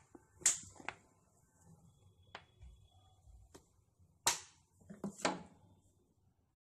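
Maida flour being tipped into a stainless steel bowl: a few sharp taps and clicks with soft rustling between them, the loudest tap just after four seconds in.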